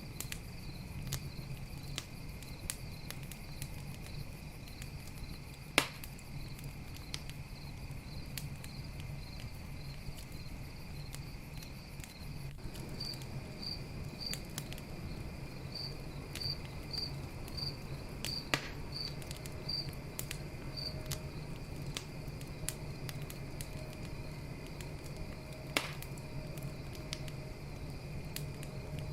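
Campfire crackling with many small ticks and three louder pops, over a low steady rumble. Crickets trill steadily behind it, with a run of distinct chirps midway.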